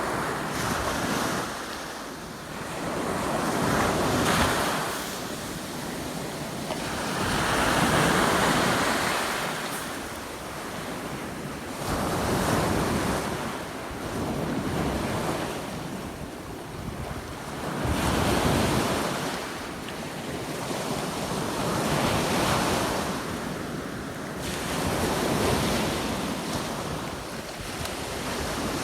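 Waves of a rough, storm-stirred sea breaking on the shore: a wash that swells and falls about every three to four seconds. Wind buffets the microphone.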